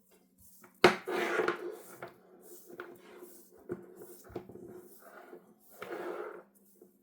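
A sharp knock about a second in, then rustling and scattered small clicks as a braided headphone cable and its connectors are handled.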